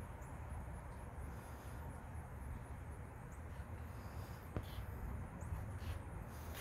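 Insects chirping faintly in a high-pitched, evenly repeating pulse, over a low rumble, with a couple of light clicks in the second half.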